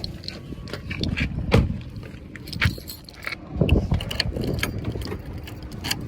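Irregular knocks, clicks and rattling of things being handled, with the loudest thumps about one and a half, two and a half and three and a half seconds in.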